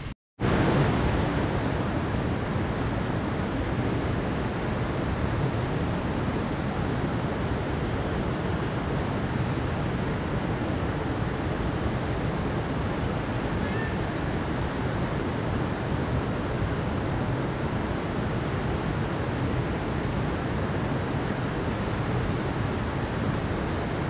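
Steady rushing of a mountain stream pouring over rocks. It begins after a split-second break at the very start.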